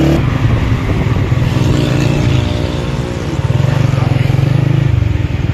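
Motorcycle engine running steadily as the bike is ridden, heard from the pillion seat with a rapid, even firing pulse.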